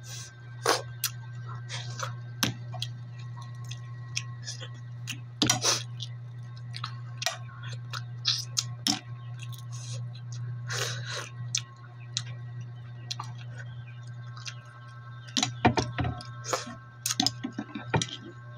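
Close-up eating of steamed mussels: chewing and mouth sounds mixed with irregular clicks and clinks of mussel shells being pried open and set down, busiest near the end, over a steady low hum.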